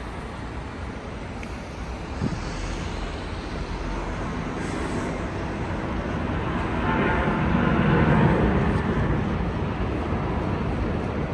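Traffic noise with a vehicle passing, growing louder to a peak about eight seconds in. A short knock sounds about two seconds in.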